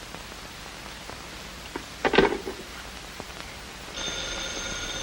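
A telephone bell rings once for about a second and a half, starting near the end, over steady soundtrack hiss. A short clatter comes about two seconds in.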